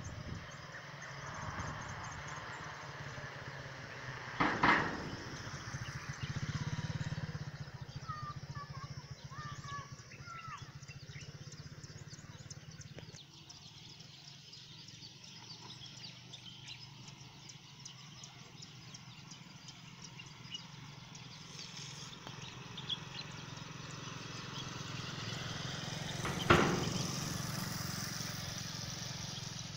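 An engine running steadily, heard as a low hum, with a few bird chirps about eight to ten seconds in. Two sharp knocks, one early and one near the end, are the loudest sounds.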